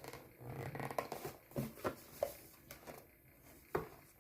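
Fingers working at a stiff paper-cardboard box that won't open: scattered small taps, scrapes and clicks, about one a second, the loudest a sharp knock near the end.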